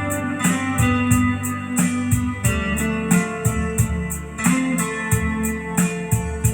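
Recorded music with guitar, bass and a steady high tick about four times a second, played back through a TPA3116D2 class-D amplifier and loudspeakers with no tone adjustment and heard through a phone microphone.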